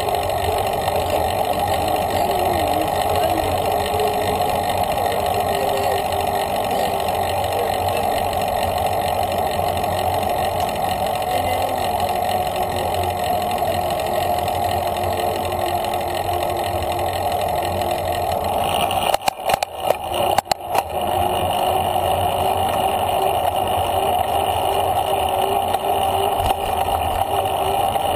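Steady wind and rolling noise on an action camera's microphone while cycling at about 12 mph on a paved path. The sound cuts out briefly a few times about two-thirds of the way through.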